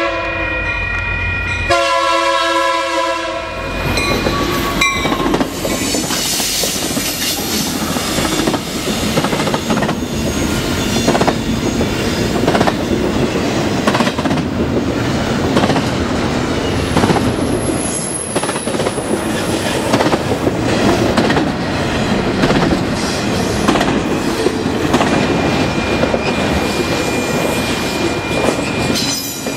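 Union Pacific locomotive air horn sounding a multi-note chord for the grade crossing during the first four seconds or so, briefly broken and ending lower in pitch, then the intermodal train rolling past with steady rumble and rapid clickety-clack of wheels over rail joints. High wheel squeal comes in briefly midway and again as a thin steady squeal near the end.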